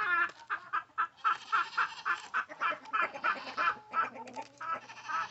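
Chickens clucking, a quick, busy run of short calls several times a second.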